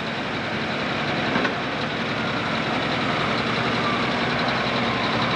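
International 1066 Pro Stock pulling tractor's turbocharged diesel engine running loud and steady, growing slightly louder over the few seconds.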